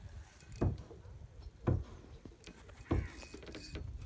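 Three dull thumps on a small wooden boat, about a second apart, with a brief higher rasp around three seconds in.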